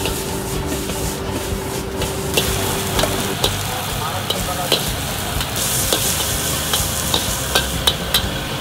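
Noodles being stir-fried in a charcoal-fired wok: a steady sizzle with a metal spatula clanking and scraping against the wok, a few louder clangs in the second half.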